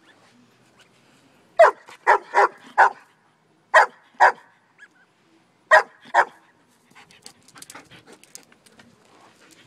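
German shepherd barking: a quick run of four barks, then two pairs of barks, with faint rustling and clicking near the end.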